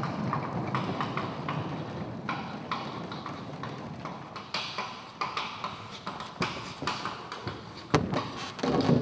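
Footsteps and knocks on a wooden stage floor as set pieces are moved: a wheeled scenery panel rolling and wooden platforms being handled and set down. The taps are irregular, with a low rumble in the first few seconds and one sharp knock about eight seconds in.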